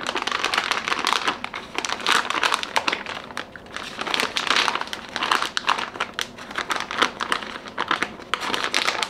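Plastic bag of shredded cheese crinkling as it is handled and opened, a dense, irregular crackle.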